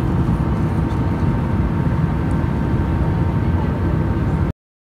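Steady low noise of an airliner cabin in flight, with a faint steady whine over it; it cuts off abruptly about four and a half seconds in.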